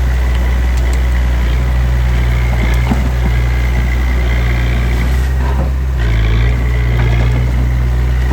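Diesel engine of heavy earthmoving equipment running steadily, with a thin high whine over the engine hum. The engine note shifts briefly about five to six seconds in.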